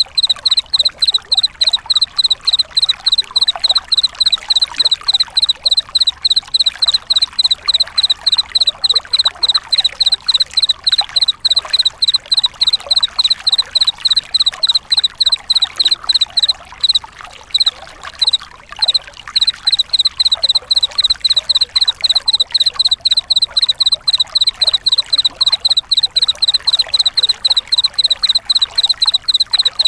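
A cricket chirping in a fast, even rhythm of about four high pulses a second, breaking off briefly past the middle, over a steady background hiss.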